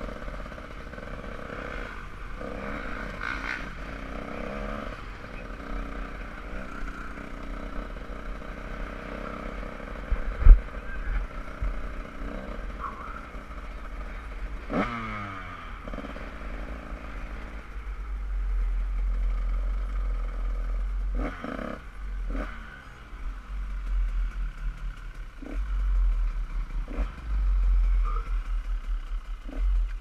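Dirt bike engine running at low speed, puttering with small changes in revs, and the revs falling off about halfway through. A sharp knock comes about ten seconds in. Heavy low rumble on the microphone fills the second half.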